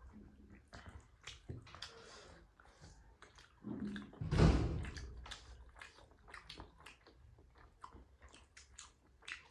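Close-miked chewing of momo dumplings: scattered wet mouth clicks and smacks, with a louder noisy swell about four seconds in.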